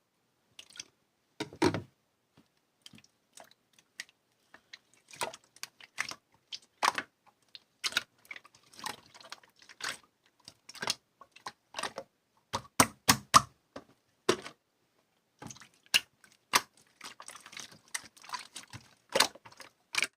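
Irregular light clicks and taps, one every half second or so, over near silence.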